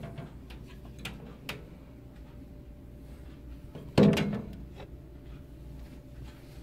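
A hard plastic mini football helmet is handled inside a glass display case, knocking once sharply against the case with a short ring, about four seconds in. There are a few light clicks before it.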